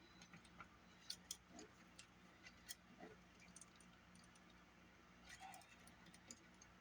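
Faint, scattered light clicks and taps from small parts of a Sony Walkman cassette mechanism being handled during disassembly, over a low steady hum.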